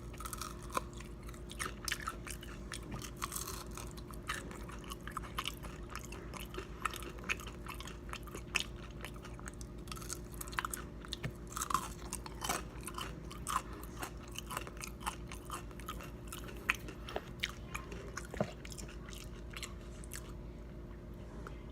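Close-up chewing of crispy fried pizza rolls: many small crunches and wet mouth clicks, stopping shortly before the end, over a steady low hum.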